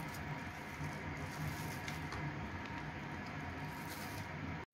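Soft crinkling and patting of a clear plastic food glove as a hand presses on fried spring rolls on a plate, a few faint soft ticks over a low steady hum.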